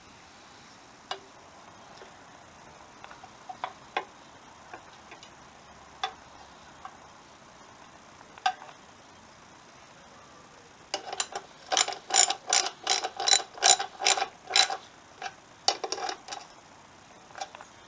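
A few scattered light clicks and knocks from parts being handled, then a ratchet wrench clicking rapidly and evenly, about five clicks a second for about four seconds, as a bolt is tightened. A few more ratchet clicks come near the end.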